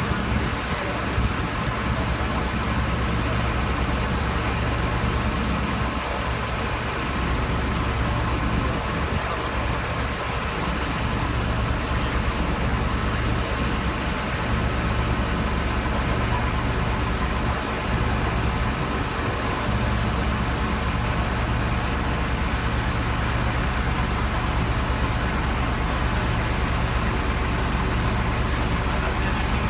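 Heavy crane truck's diesel engine running steadily at an even low hum, as it would while working the crane.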